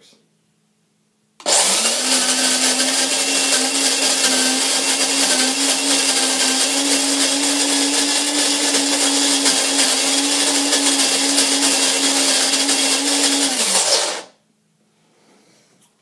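Cuisinart DBM-8 electric burr grinder grinding coffee beans on a fine setting. It starts about a second and a half in with a loud motor whine over grinding noise, rising slightly in pitch and then holding steady. It shuts off on its own about 14 seconds in.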